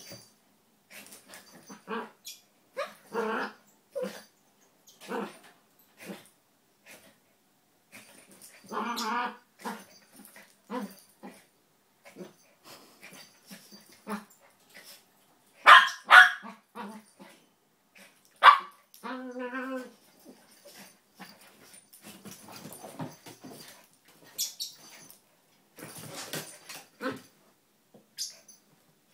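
A red toy poodle and a Maltese play-wrestling, giving short growls and barks at irregular intervals, loudest a little past halfway, followed by one drawn-out pitched growl lasting about a second.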